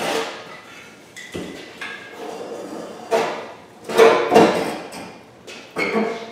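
Metal clanks and knocks, several in a row with a short ring after each, the loudest two close together about four seconds in: hand tools and loosened parts striking the underside of a Yugo being stripped on a lift.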